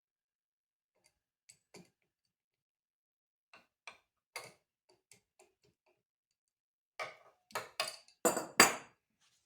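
Scattered light clicks and clinks, then a quick run of louder knocks about seven seconds in, from tools and metal parts being handled at a workbench.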